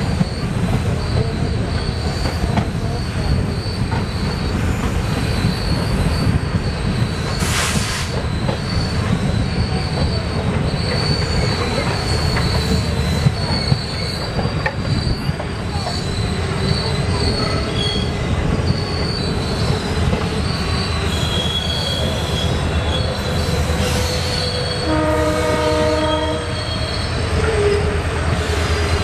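Passenger train running at speed, heard from an open coach doorway: a steady heavy rumble and clatter of wheels on rail, with a faint high squeal coming and going. There is a single sharp clank early in the run, and near the end a train horn gives a short toot.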